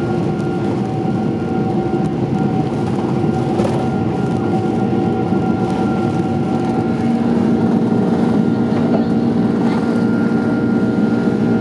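Boeing 767's Rolls-Royce RB211 turbofans at takeoff thrust, heard from inside the cabin during the takeoff roll and lift-off: a steady roar with several held tones. About seven seconds in, a lower tone comes in and the sound grows slightly louder.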